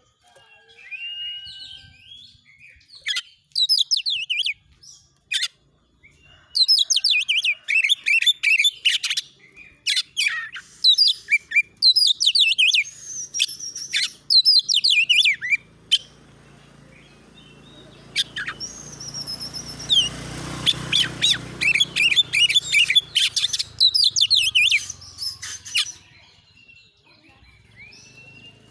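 Oriental magpie-robin (kacer) singing loud, rapid bursts of varied trilling, chattering song over and over, with short pauses between phrases. A low rumble swells under the song in the middle.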